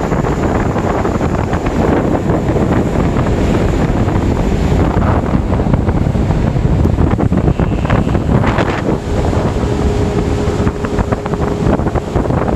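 Wind buffeting the microphone over the rushing noise of a boat under way at sea. A faint steady tone joins about nine seconds in.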